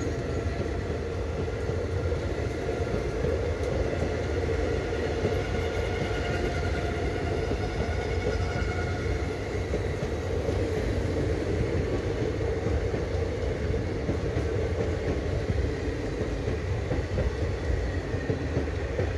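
Indian Railways express passenger coaches rolling past while departing, a steady rumble and rattle of wheels on rails. Faint thin steady squealing tones sit above the rumble and fade out about halfway through.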